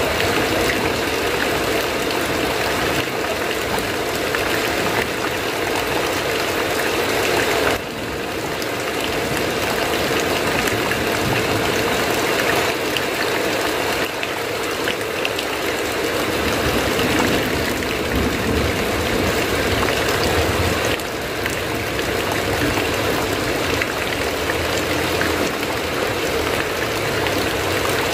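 Heavy rain falling steadily, a dense even hiss, with a brief dip in level about 8 seconds in and again about 21 seconds in.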